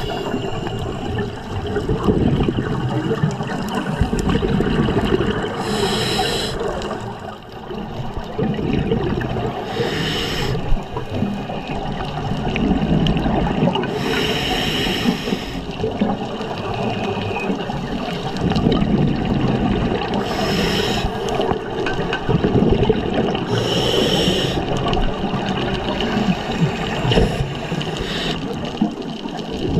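Scuba regulator breathing heard underwater: a bubbly, hissing exhalation every four to six seconds over a steady low underwater rumble.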